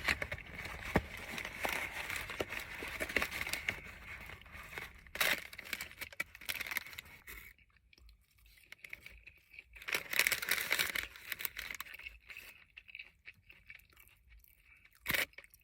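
Paper and plastic food packaging crinkling and tearing close to the microphone, in irregular bursts with quieter pauses between.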